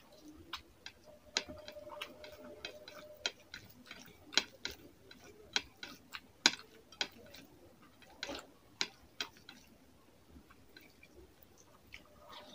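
Close-miked wet eating sounds: irregular sharp clicks and smacks from chewing a mouthful of rice and fish curry and from fingers squishing the rice and curry together, thinning out near the end.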